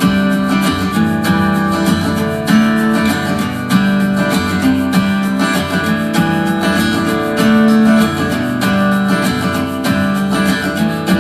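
Music with strummed acoustic guitar over a steady beat and strong bass notes, played through a TCL S642W 2.1 soundbar with subwoofer.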